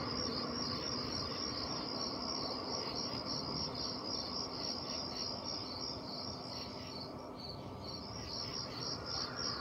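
Crickets chirping in an even, repeating pulse, about three chirps a second.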